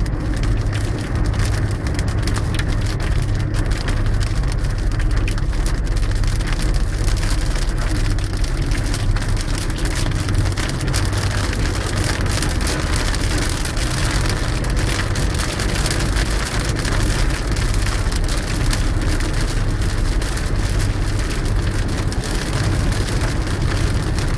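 Steady rain falling on a surface, over the low, steady rumble of a car.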